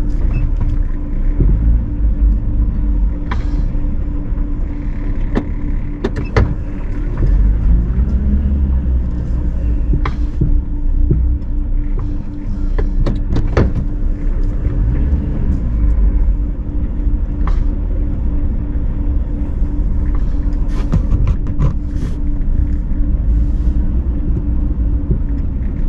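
A car's engine and road noise heard from inside the cabin while driving slowly: a steady low rumble with scattered short clicks and knocks.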